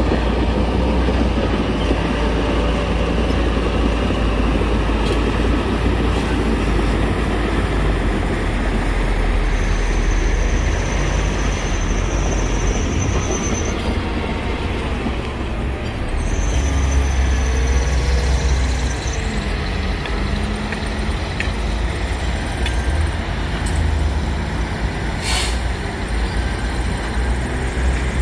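Heavy diesel construction machinery working, a steady loud engine rumble. A high thin squeal comes twice, about ten and seventeen seconds in, and there is a single sharp clank near the end.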